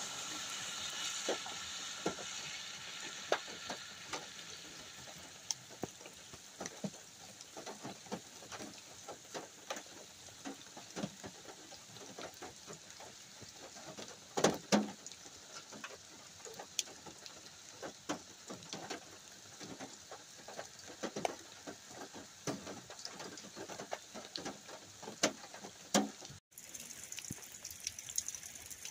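Rain falling, with irregular drops pattering and dripping close by and a faint hiss underneath. After a cut near the end the hiss of the rain is steadier and brighter.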